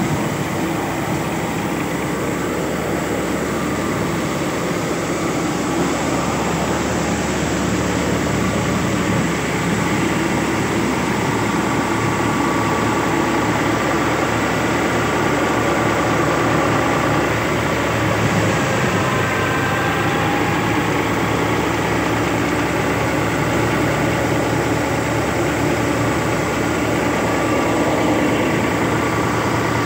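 'Double Dollar Special' wheat thresher running steadily while threshing wheat: a loud, even mechanical din of the drum, fans and sieves that does not break, with grain and straw passing through the machine.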